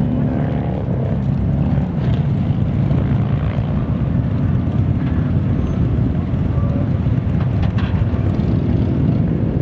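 Steady, loud low rumble of motorcycle engines.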